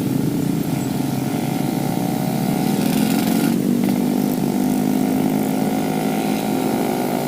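Yamaha RX King 135's single-cylinder two-stroke engine running steadily on the move, its carburettor set rich ("stel basah").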